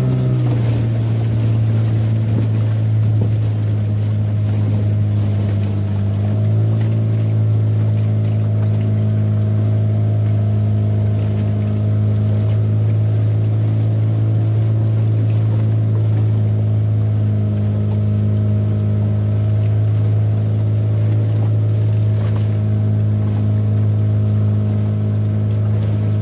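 A 15-horsepower outboard motor runs steadily at trolling speed with a constant low drone, pushing a small fibreglass boat, over the hiss of water and wind.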